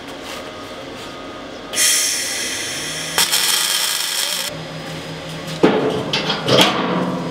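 MIG welder's arc crackling for about two and a half seconds, starting about two seconds in, as a slot weld joins a 4 mm steel skin to the ribs beneath. Afterwards, a couple of sharp metallic knocks.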